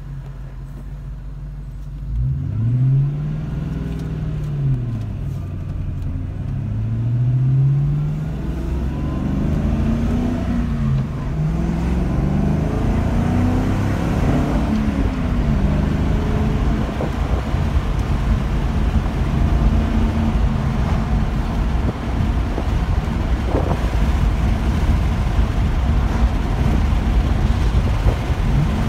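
1997 Mustang Cobra's 4.6-litre DOHC V8 heard from the cabin, revving up and dropping back several times as it is shifted up through the gears with a Hurst shifter. About halfway through it settles into a steady cruising drone with road noise.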